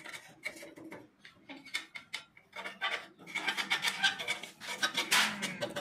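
A steel bar scraping and clinking against the spiral cutting blades of a chaff cutter's rotor: scattered metal clicks at first, then a denser run of rasping scrapes from about three seconds in.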